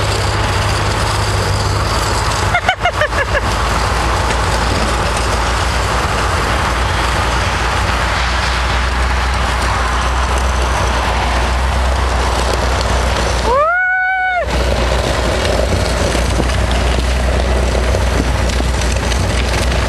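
V8 Range Rover driving steadily on a snowy road, with a constant rush of wind and road noise over the microphone above a low engine hum. A short fluttering burst comes about two and a half seconds in, and a brief rising tone about two-thirds of the way through.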